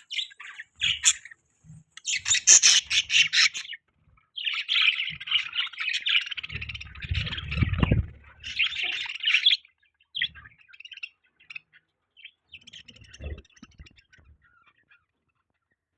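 Budgerigars chirping and chattering in quick, busy bursts, with loud squawky stretches in the first half and sparser, quieter chirps later. A low rumble sits under the chatter for a moment midway.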